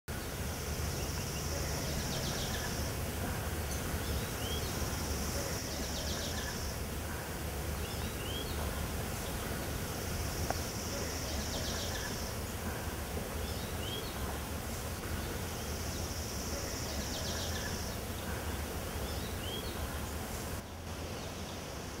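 Woodland ambience: a high buzzy phrase repeats about every five seconds, with short rising bird chirps between, over a steady low rumble.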